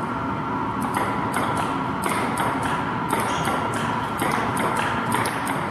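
Table tennis rally: the ping-pong ball clicking sharply off paddles and table in a quick back-and-forth, about three hits a second, over a steady background hum.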